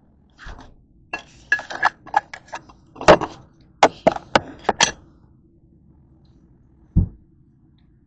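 Kitchen dishes and utensils clattering: a quick run of sharp clinks and knocks that stops about five seconds in, then one dull thump near the end.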